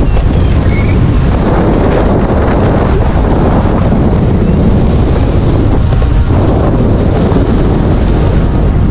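Loud, steady wind buffeting the microphone on a hang glider in flight, a rushing noise heaviest in the low end.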